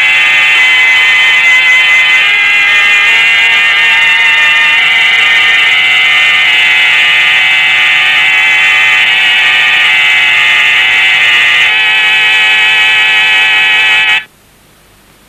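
A loud, harsh buzzing drone of many held tones at once, with a fast flutter, that cuts off abruptly near the end.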